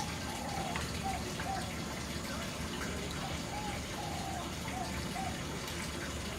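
Steady rushing noise like running water, with a string of short, arched whistled chirps repeating through it, as from a bird.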